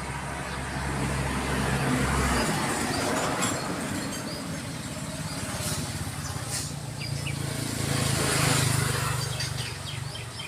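Motor vehicles passing, a low engine hum and road noise swelling and fading twice, with a few faint chirps over it.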